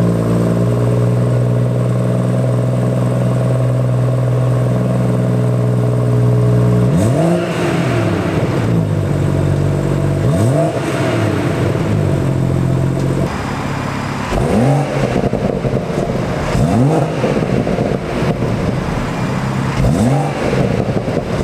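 BMW M140i's 3.0-litre B58 turbocharged straight-six idling steadily, then blipped five times, each rev rising and falling back to idle, heard through the standard exhaust with both resonators still fitted. Recorded in a concrete multi-storey car park.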